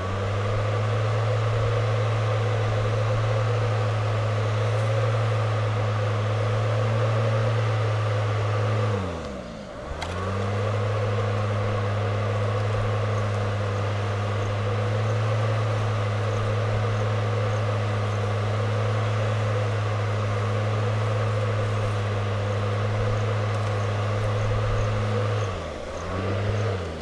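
Small electric fan motor running with a steady hum and whir. It winds down and cuts out about nine seconds in, spins back up a second later, and winds down again near the end.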